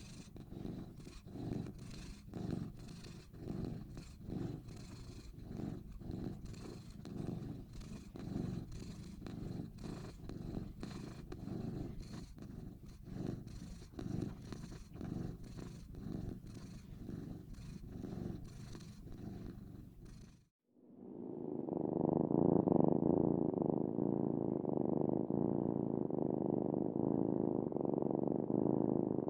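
Domestic cat purring in even pulses, about two a second. About twenty seconds in it cuts off and a louder, muffled purr begins, with no high end.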